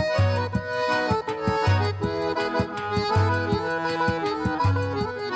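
Instrumental background music with a steady beat: a low bass note repeats about every second and a half under quicker, regular percussive ticks and sustained melody tones.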